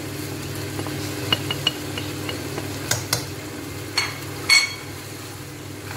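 A spoon scraping spices off a plate into a non-stick pan of mutton and stirring, with light taps and clinks against the plate and pan and one louder ringing clink about four and a half seconds in. A steady low hum runs underneath.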